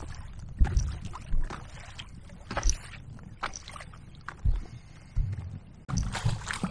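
Kayak coasting without paddle strokes into a choppy headwind: small waves slap the hull in irregular low knocks, with wind rumbling on the microphone. A louder, denser rush of water and wind starts near the end.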